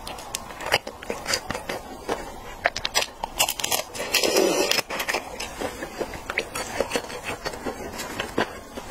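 Mouth sounds of eating raw red shrimp: wet smacking, sucking and many small clicks as the shrimp is bitten and chewed, with a louder stretch about four seconds in.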